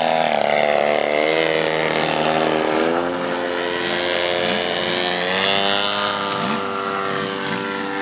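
Engine and propeller of a giant-scale radio-controlled aerobatic airplane running hard, its pitch wavering with the throttle as it hovers nose-up and flies off. The pitch drops about three seconds in and climbs again a couple of seconds later.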